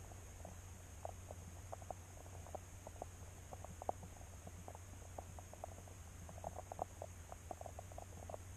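Faint steady electrical hum and high whine with many scattered soft ticks and chirps, several a second, as picked up by an underwater fishing camera beneath the ice.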